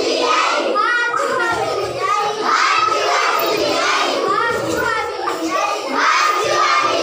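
A group of schoolchildren shouting and calling out together, many young voices overlapping without a break.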